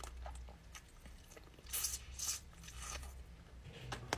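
Close-miked eating of boiled crawfish: wet sucking and slurping, with two short, louder slurps about two seconds in and small chewing clicks between.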